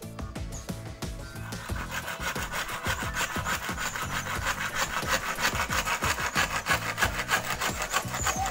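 Hand saw cutting through a green bamboo stalk in quick back-and-forth strokes, the rasp growing louder about a second and a half in.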